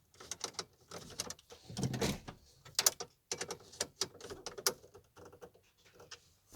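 Irregular sharp clicks and taps of hands working on plastic dash trim and radio wiring, with a denser rustle about two seconds in.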